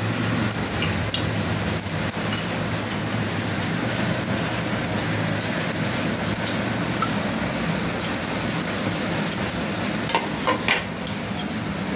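Hot oil in a pressure cooker sizzling steadily as whole spices (bay leaves, cumin seeds, peppercorns, cinnamon, cardamom) are tipped into it for tempering. The hiss carries light crackles, with a few sharper clicks near the end.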